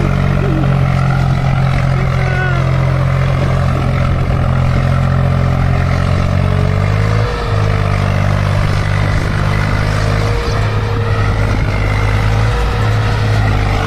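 Swaraj 734 XM tractor's three-cylinder diesel engine running steadily under load as it pulls a fully loaded soil trolley; the engine note shifts slightly about halfway through.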